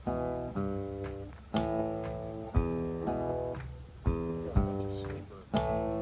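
Background music: a guitar strumming chords, with a new strum about every second.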